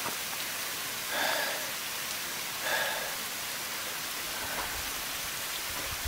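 Steady rush of a mountain valley stream running over rocks, with two short, slightly louder noises about one and three seconds in.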